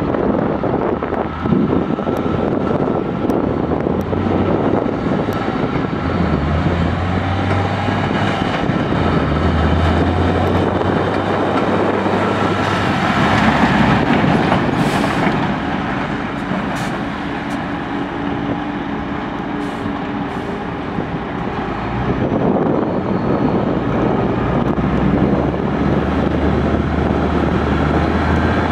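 1999 International crane truck's diesel engine running with a low drone as the truck drives up and past, loudest about halfway through, easing off and then picking up again near the end.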